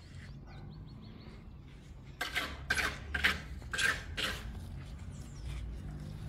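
A quick run of about five short scraping noises, with faint bird chirps before them.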